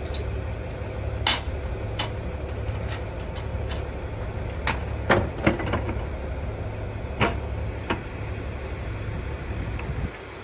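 KiHa 110 diesel railcars idling with a steady low rumble. Sharp metal clanks and knocks come at irregular intervals from the gangway between the two cars being connected by hand. The rumble drops away near the end.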